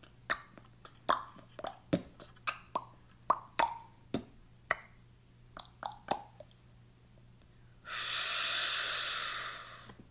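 Puppet-show sound effects: a run of short plopping clicks, roughly two or three a second, several with a quick drop in pitch. About eight seconds in, a burst of hissing noise starts and fades out over about two seconds.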